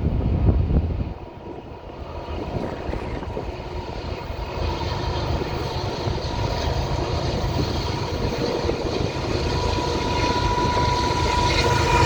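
Freight train's diesel locomotives approaching, growing steadily louder, with a steady tone coming in near the end. Wind buffets the microphone for about the first second.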